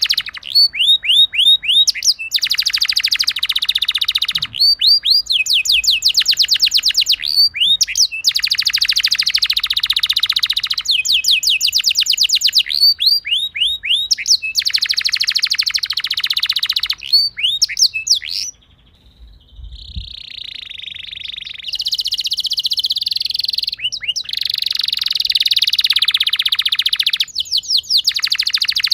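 Domestic canary singing a rolling song: runs of quick sweeping chips alternating with fast, dense rolled trills, each phrase a second or two long. The song pauses briefly about two-thirds of the way through, then resumes with a long continuous trill.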